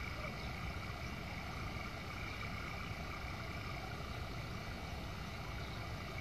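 Faint, steady low hum with a light hiss, unchanging throughout.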